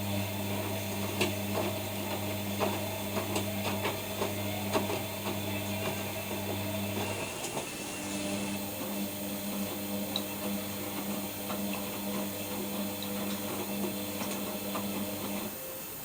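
ELIN WA 14 M washing machine running: a steady low motor hum with scattered clicks and knocks. The hum breaks off about seven seconds in, starts again a second later, and stops near the end.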